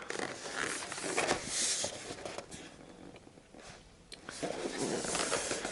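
Cardboard airgun box being handled and turned over: rustling and scraping with a few light knocks, in two spells with a quieter gap in the middle.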